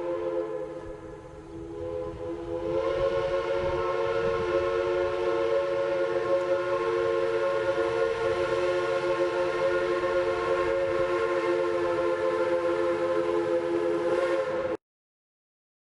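Chime train whistle blowing one long chord of several tones at once, weaker for the first couple of seconds and then fuller, with a low rumble beneath; it stops abruptly near the end.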